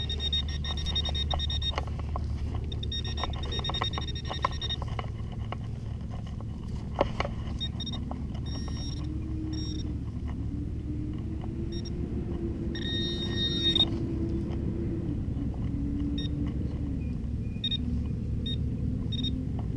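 Handheld metal-detecting pinpointer sounding in a high buzzing tone in several spells of a second or two as it is worked over a buried target, over a steady low rumble.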